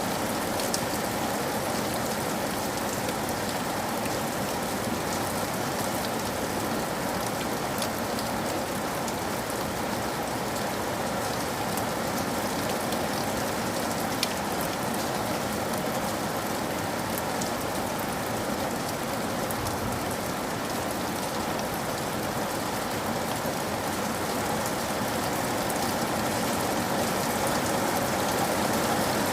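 Steady rain falling on a surface, an even hiss with a few distinct drop ticks here and there.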